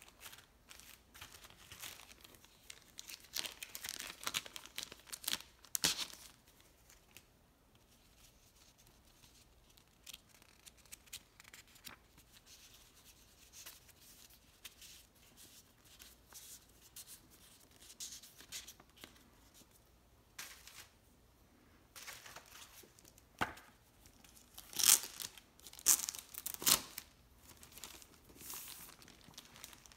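Clear plastic packaging crinkling and rustling as it is handled, with softer paper rustles as a stack of paper play-money bills is shuffled. The crinkling comes in irregular bunches, loudest for a few seconds near the end.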